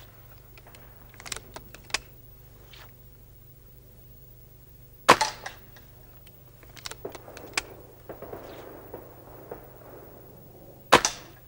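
BSA Gold Star spring-piston air rifle fired twice, about six seconds apart, each shot a sharp crack. Lighter clicks between the shots come as the underlever is worked to recock and index the next pellet from the magazine.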